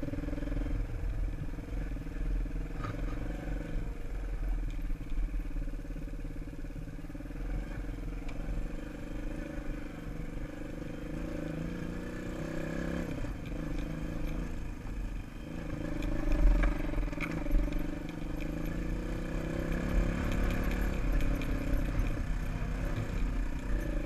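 Dirt bike engine running while ridden on a motocross track, its pitch rising and falling with the throttle, with wind noise on the helmet-mounted microphone. A few sharp knocks come about two-thirds of the way in.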